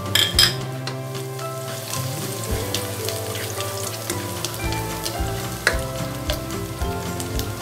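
Minced garlic sizzling in hot cooking oil in a wok as it is sautéed, stirred with a spatula, with a short clatter about half a second in.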